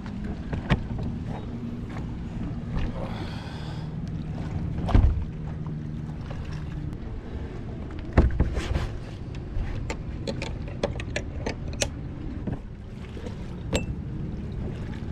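Scattered clicks and knocks of hands working on electrical cables and tools, over a steady low hum, with two louder thumps about five and eight seconds in.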